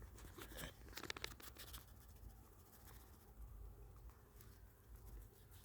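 Near silence, with faint rustles and a quick cluster of light clicks about a second in from the camera being handled and repositioned.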